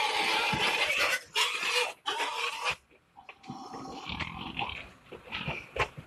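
Pigs squealing inside a livestock transport truck: a loud stretch of squealing for about the first three seconds, then softer, shorter squeals.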